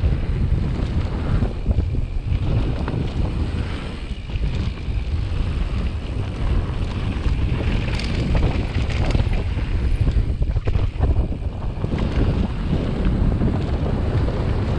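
Wind rushing over an action camera's microphone as a mountain bike rolls down a dirt and gravel trail, with a steady low rumble from the tyres and scattered small rattles and clicks.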